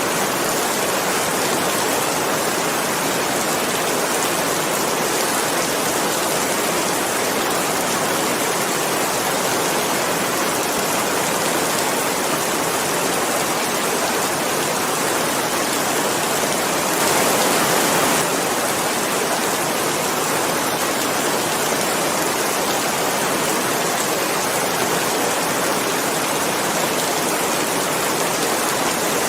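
Steady heavy rain, a dense even hiss with no separate drops standing out. It swells slightly louder for about a second around the middle.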